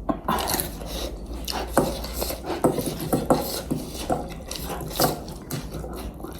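Eating sounds: irregular clicks and knocks of utensils against a bowl and dishes, with chewing and slurping noises.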